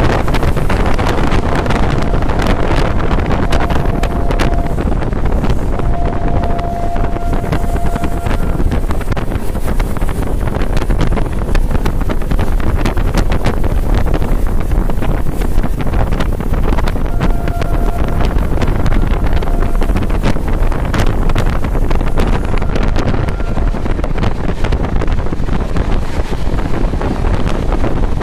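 Express train running at speed, heard from inside a passenger coach: a steady loud rumble and wind rush, with scattered clicks of the wheels passing over rail joints. A faint high tone comes in briefly a few times.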